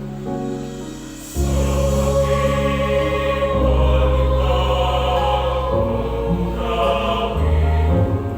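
Church choir singing with sustained chords. The music swells louder about a second and a half in.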